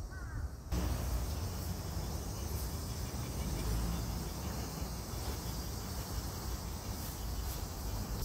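A steady, high insect chorus over a low rumble. It starts abruptly just under a second in.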